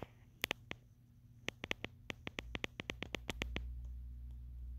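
A quick run of sharp clicks, about six a second at its fastest, that stops a little after halfway; a low hum comes in under them and grows stronger near the end.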